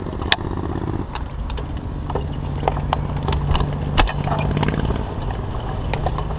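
Bicycle rattling over rough asphalt: irregular sharp clicks and knocks over a steady low rumble of road and wind noise.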